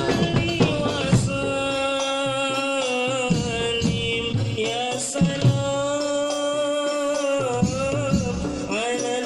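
Islamic devotional singing by a lead voice holding long, drawn-out wavering notes. Hand frame drums and a large bass drum of a hadroh-style ensemble sound a few scattered strokes; the loudest comes about five seconds in.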